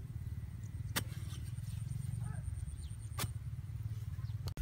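Shovel striking the earth twice, two sharp knocks about two seconds apart, over a steady low rumble.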